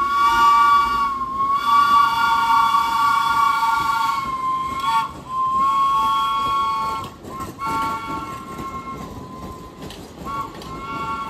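Subway train wheels squealing on the rails: several high, steady tones that wobble in pitch, break off and resume a few times, and grow fainter and choppier in the second half.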